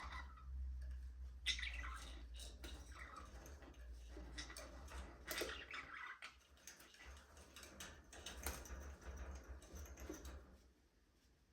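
Budgerigars chirping and chattering in short, scattered calls, over a low rumble that cuts out near the end.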